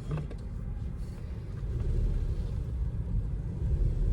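Low, steady rumble of a car heard from inside the cabin, growing a little louder partway through as the car moves forward.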